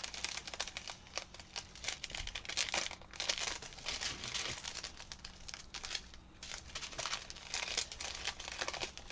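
Small plastic zip-lock bags of diamond-painting drills crinkling as they are handled and sorted, a continuous run of crackles with a brief lull about six seconds in.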